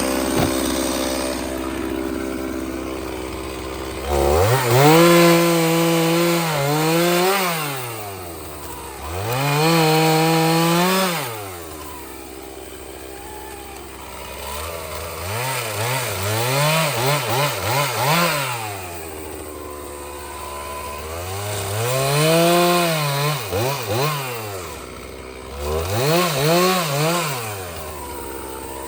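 Two-stroke Stihl chainsaw cutting seasoned oak for firewood, revving up to full throttle and holding for a couple of seconds, then dropping back to idle, several times over. Between the longer runs come quick throttle blips.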